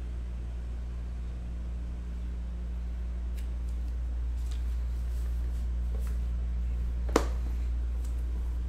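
Steady low electrical hum with a few faint clicks, then one sharp tap near the end as hands handle a pen and sticky note on a cardboard box.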